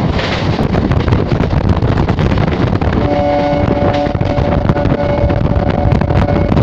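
Electric suburban local train running at speed, heard from an open doorway: steady wind rush on the microphone over the rumble of wheels on the rails. About halfway through, a steady pitched tone of several notes together joins in and holds nearly to the end.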